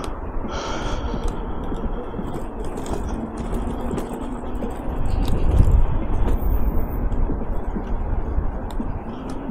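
Riding noise from a Jueshuai electric scooter on the move: wind rushing over the microphone with road rumble and rattling, swelling to its loudest about five to six seconds in.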